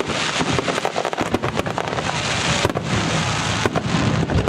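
Aerial fireworks bursting in quick succession: a dense run of crackling pops over a continuous low rumble of explosions.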